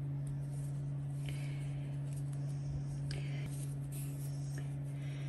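Faint scratching and rustling of a metal crochet hook drawing cotton thread through stitches, over a steady low electrical-type hum.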